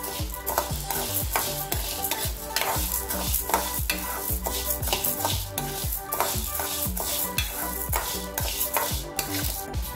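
A steel spoon stirring dry urad dal and chana dal around a metal pan, the lentils rattling and the spoon scraping the pan in quick, uneven strokes as they dry-roast.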